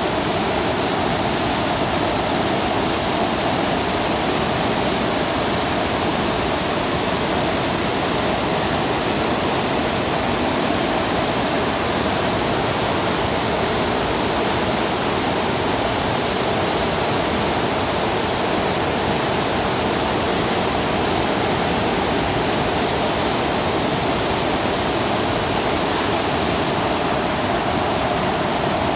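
Stepped waterfall and white-water rapids pouring steadily: a loud, even rush of falling water, its highest hiss easing slightly near the end.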